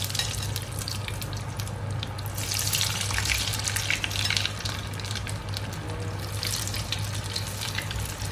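Frozen french fries deep-frying in hot oil: a dense, steady crackling sizzle of bubbling oil.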